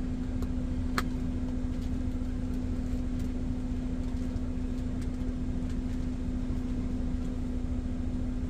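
Steady low hum of a parked semi truck's diesel engine idling, with one constant drone tone over a low rumble. A light click about a second in.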